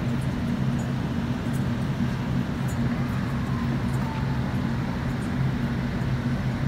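Chevrolet Suburban's engine running at low speed with a steady low hum as the SUV rolls slowly up and idles.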